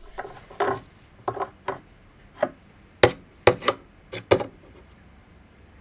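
Scattered light taps and clicks of a metal engineer square being handled and set against the CNC machine's Y plate and aluminium extrusion, about a dozen in all, the sharpest about three seconds in.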